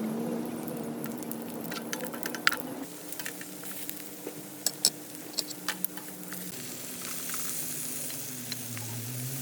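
Octopus and vegetables sizzling as they are stir-fried in a pan, with a steady hiss and scattered sharp crackles and clicks between about one and a half and six seconds in.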